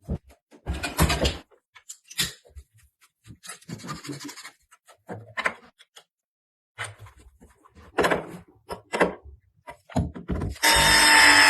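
Copper pipework being handled and worked with hand tools: a scattered run of knocks, taps and short scrapes. Near the end a power tool starts up loudly and keeps running.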